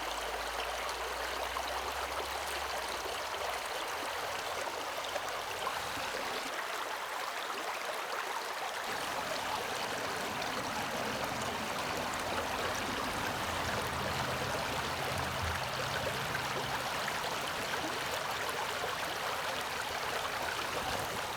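River water rushing steadily, a constant even hiss of flowing water.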